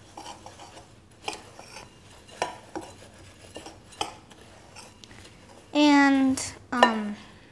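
A spoon stirring dry oats and flour in a mixing bowl, with scattered clinks and taps of the spoon against the bowl. A short voice sound comes twice near the end.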